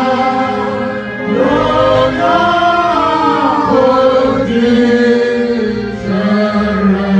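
Choir singing a gospel worship song with long held notes.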